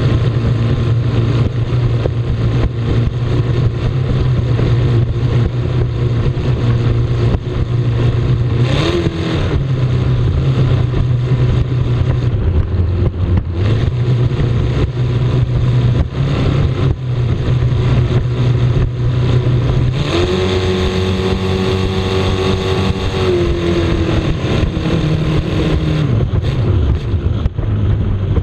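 Racing powerboat's engine running hard at speed, heard from on board over a rush of wind and water. The engine note dips briefly about nine seconds in, jumps to a higher pitch about twenty seconds in, holds there, then falls back over the last few seconds.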